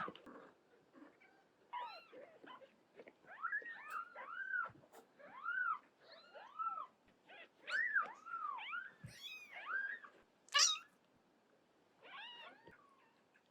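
Newborn kittens mewing over and over, thin high calls that rise and fall, one after another in quick succession. A brief, louder, harsher cry comes about ten and a half seconds in, and the mewing stops near the end.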